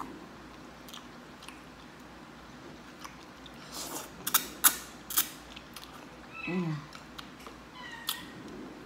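Close-up mouth sounds of a person eating rice noodles: soft chewing, then a cluster of sharp, wet smacks and slurps about four to five seconds in as noodles are sucked in from chopsticks. Short hummed "mm"s follow near the end.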